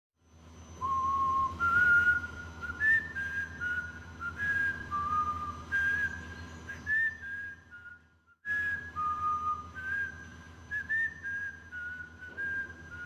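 A person whistling a tune: a clear single line of notes in two phrases, with a short break about eight seconds in, over a steady low hum.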